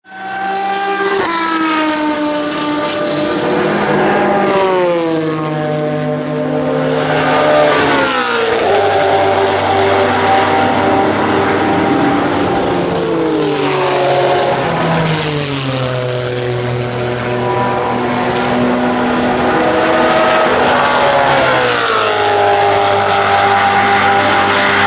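1997 Lotus Elise GT1 race car's V8 engine running hard on track, its loud note falling in pitch several times between stretches of steady revs.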